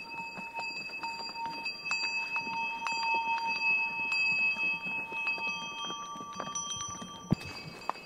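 Bells on pack mules and horses ringing as the animals walk: several ringing tones struck again and again, with scattered knocks and one sharp knock near the end.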